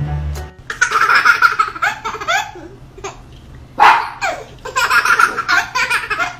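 Babies laughing and giggling in repeated short bursts, with one loudest burst of laughter about four seconds in. Background music cuts off just after the start.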